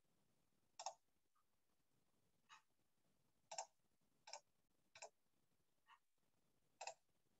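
Faint clicks of a computer mouse, about seven irregularly spaced single clicks, as a user works through menus and logs out of a web page.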